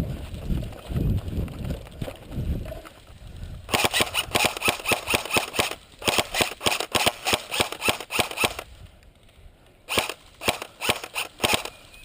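Airsoft guns firing in quick single shots, about four or five a second: a long string of sharp cracks, a short pause, then a second shorter string. Before the shooting starts there is a low rumbling on the microphone for the first few seconds.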